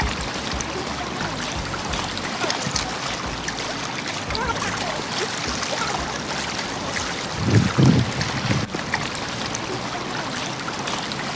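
Lake water lapping and splashing against the shore and a driftwood log, a steady wash of small-wave noise. A brief low rumble comes about seven and a half seconds in.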